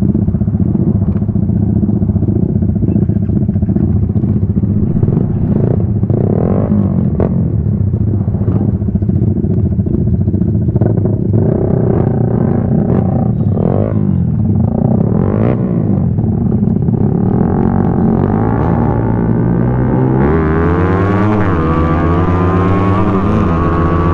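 Motorcycle engine idling steadily close by while vehicles pass on the road. About twenty seconds in the engine revs up through the gears as the motorcycle pulls away, with wind hiss on the microphone.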